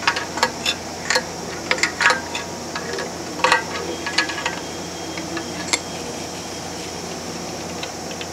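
Sharp, irregular metallic clicks and taps of a wrench working the mounting-bracket bolts tight into a valve actuator's yoke, over a steady hum. The clicks stop about six seconds in.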